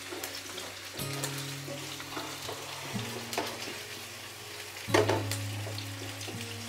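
Sardines, onion and olives sizzling in hot oil in a nonstick frying pan, stirred with a wooden spatula with scattered scrapes and clicks and one louder knock about five seconds in. Soft background music with sustained notes plays underneath.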